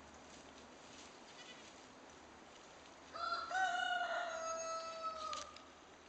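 A rooster crowing once, about halfway in: a short opening note, then a long held note of about two seconds that sags slightly in pitch before it stops.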